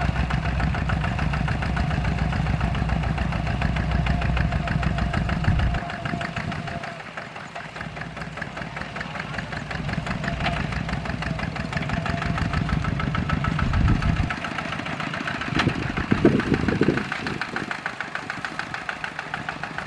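Two-wheel walking tractor's single-cylinder diesel engine chugging steadily under load as it drags a cage-wheel plough through wet paddy mud, with a rapid, even beat. Its deep low note fades about six seconds in, comes back, and fades again just after fourteen seconds. A brief louder burst comes about sixteen seconds in.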